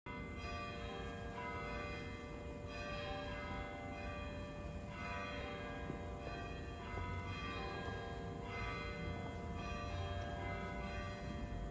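Church bells pealing: strikes about once a second, their tones ringing on and overlapping.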